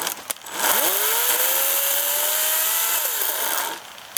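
EGO CS1400 56-volt battery chainsaw running under the trigger: its motor whine rises quickly as it spins up, holds and climbs slowly for about two seconds, then winds down and stops near the end. A couple of light clicks come just before it starts.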